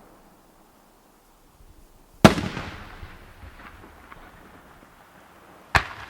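Aerial firework shells bursting: a loud boom about two seconds in that rumbles away with faint crackling, then a second sharp bang near the end.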